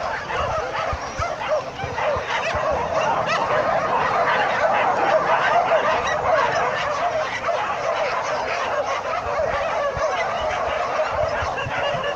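A large pack of dogs yelping and barking all at once in a dense, continuous chorus of overlapping high calls.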